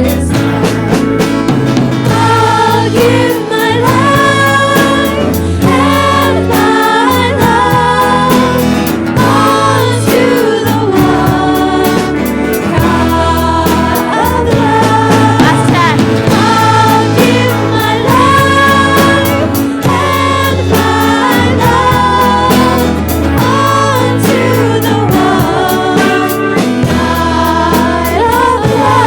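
Live gospel-style church music: voices singing together over a band with a steady bass line and a regular drum beat.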